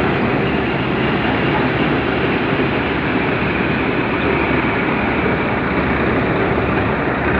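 Tractor-driven Mayur thresher threshing isabgol (psyllium): a steady, dense mechanical rush from the machine, with the tractor engine running evenly beneath it. The tractor is under no load.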